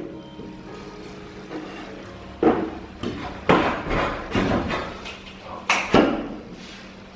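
Plywood exhaust-fan housing knocking and bumping against the wooden window frame as it is pushed and fitted into place: a run of about six sharp knocks, starting a couple of seconds in.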